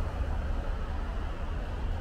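Steady city ambience in the rain: a low rumble of traffic under an even hiss of rain.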